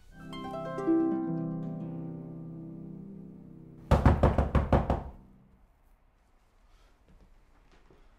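A harp glissando, plucked notes ringing and fading over about four seconds. Then a rapid run of about eight loud knocks on a door, lasting about a second.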